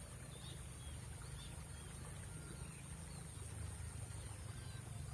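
Faint outdoor riverside ambience: a steady high-pitched drone, scattered short bird chirps and a low rumble.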